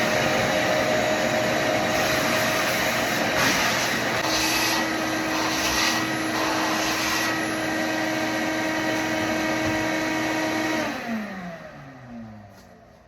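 Vacuum cleaner running steadily with a motor whine. It is switched off about 11 seconds in, and the motor winds down with falling pitch.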